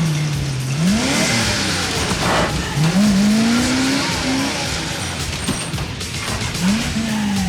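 Film soundtrack of a vehicle engine revving, its pitch climbing and dropping several times, with tires squealing and skidding strongest in the first half, over a music score.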